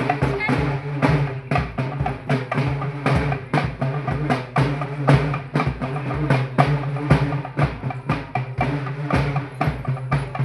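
Loud music with fast, dense drumming: many quick strikes every second over a steady low drone.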